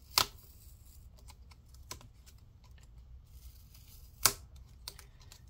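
Two sharp clicks about four seconds apart, with faint scattered ticks between them, from hands working the plastic screen frame of a laptop as adhesive is peeled from it.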